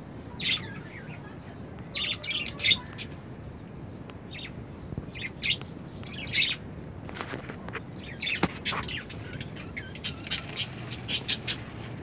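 Budgerigars calling in short, high chirps, scattered at first, then in a quick run of calls near the end.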